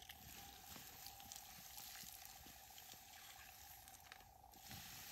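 Faint hiss and crackle of water poured from a cup sizzling on hot campfire embers as the fire is doused.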